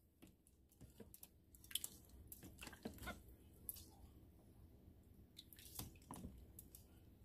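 Faint wet squelches and small splashes of cut bitter bolete pieces being stirred and scooped in a tub of water with a plastic slotted spoon, a cluster of them between one and three seconds in and a few more around six seconds.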